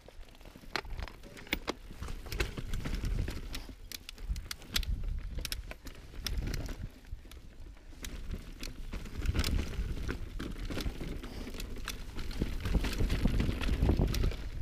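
Mountain bike being ridden over rough singletrack: irregular sharp clicks and rattles from the bike jolting over rocks and roots, over a heavy low rumble of wind buffeting the camera microphone that swells about nine seconds in and again near the end.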